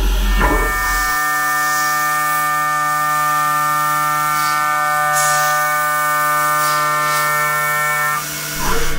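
DNM 5700L CNC vertical mill's spindle turning at 9000 rpm as a 3/4-inch endmill cuts 6061 aluminum: a steady pitched machining tone over the hiss of coolant spray. The tone cuts off near the end.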